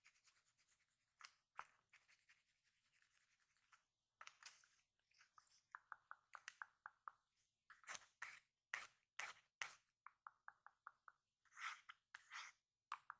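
Pencil sketching on a small spiral-bound notepad: faint, scratchy pencil strokes, some in quick even runs of short strokes.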